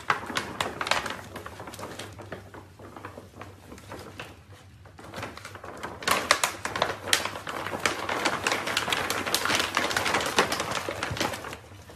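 Puppies crawling into and wrestling over a large empty bag, the bag rustling and crinkling in rapid crackles. The crinkling gets busier and louder about halfway through.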